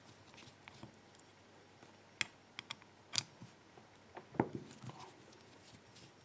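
Scattered sharp metallic clicks and taps of a Sargent lock cylinder and small tools being handled while the lock is taken apart.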